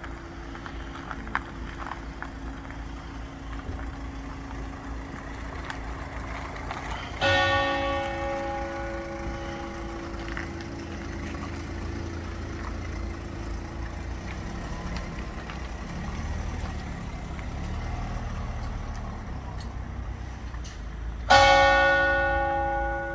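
A single church bell tolling slowly for a funeral: two strokes about fourteen seconds apart, each ringing out and fading away slowly. Under it, the steady low running of a car engine.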